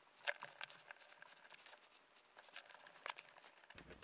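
Faint, scattered light clicks and taps of small parts handled on a workbench: a plywood landing-gear plate with its wire gear leg and wheel being turned over in the hands.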